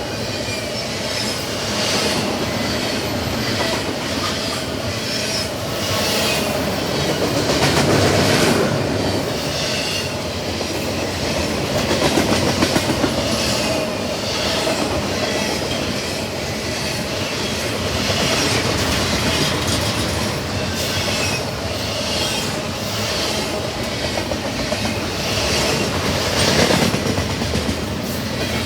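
Freight cars of a long CSX intermodal stack and autorack train rolling past at steady speed, wheels clacking over rail joints, with intermittent wheel squeal.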